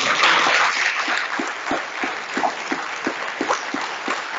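Audience applauding: many hands clapping, dense at first and thinning into scattered separate claps.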